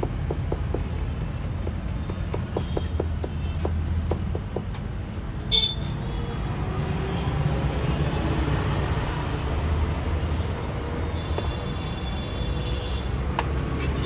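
Roadside traffic rumbling steadily. A short, loud horn toot comes about halfway through, and a fainter horn sounds later. Light rapid clicks run through the first few seconds.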